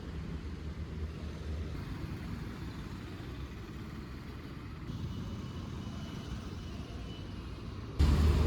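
Road traffic: a steady low rumble of motor vehicles running, with a faint high thin tone for a couple of seconds in the middle.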